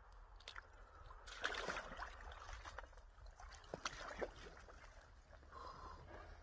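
Icy lake water with broken ice sloshing and splashing faintly as a person lowers himself into a hole in the ice, the main wash of water about a second and a half in, followed by a few small sharp knocks.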